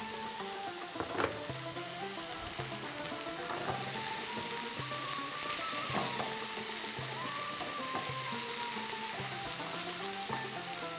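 Diced tomatoes and green peppers sizzling in a non-stick frying pan with a splash of water, stirred with a wooden spatula that clicks against the pan a few times, over background music with a steady melody.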